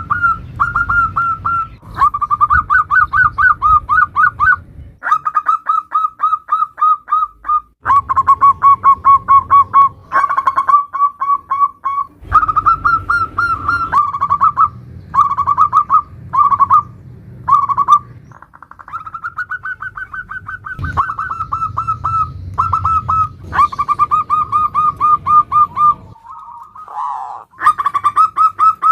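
Zebra dove (perkutut) singing in the 'nutut' style: phrases of quick, trilling coos a few seconds long, repeated with short pauses between them. A low hum runs underneath.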